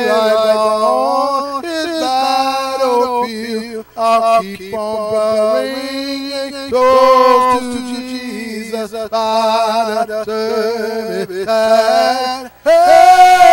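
A man's voice singing a hymn unaccompanied, in long held notes that glide between pitches, phrase after phrase with short breaths in between.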